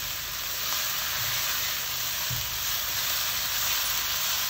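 Onion, ginger-garlic and ground-spice masala sizzling steadily in hot oil in a nonstick pan while it is stirred with a silicone spatula, the spices being roasted.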